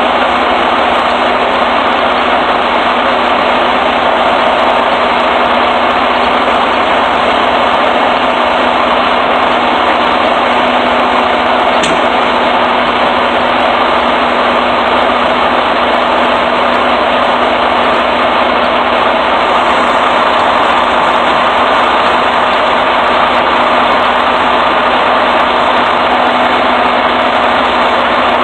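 An engine idling steadily, with a constant low hum and no change in speed.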